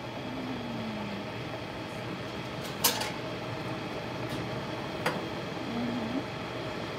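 Glass electric kettle boiling a vinegar-and-water solution to loosen limescale: a steady rushing noise of the boil. A sharp click sounds about three seconds in, with two fainter clicks a little later.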